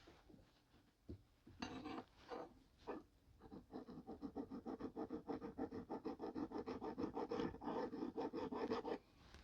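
Hand file rasping back and forth on a small clock part: a few separate strokes, then fast, even strokes at about five a second that stop abruptly near the end. The part is being filed flat and level.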